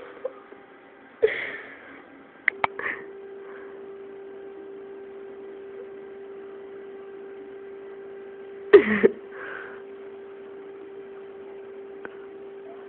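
A sleeping man snoring: one loud snort about nine seconds in, with a few short breathy sounds and clicks around it. A steady hum runs under it from about two and a half seconds in.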